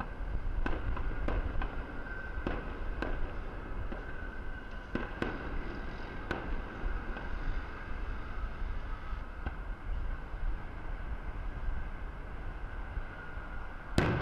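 Aerial firework shells bursting: a string of sharp bangs in the first few seconds, thinning out, then one louder bang near the end, over a steady low rumble.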